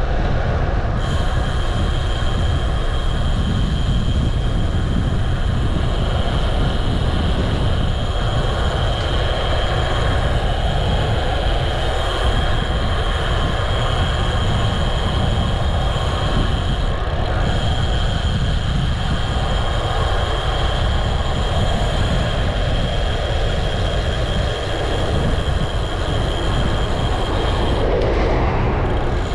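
Wind buffeting the microphone of a bicycle in motion, a steady rushing rumble, with a steady high-pitched whine over it that drops out briefly twice.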